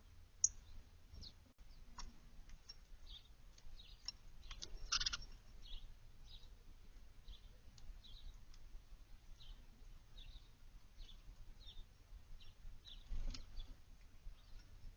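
Faint, scattered short chirps of small songbirds, with one louder call about five seconds in.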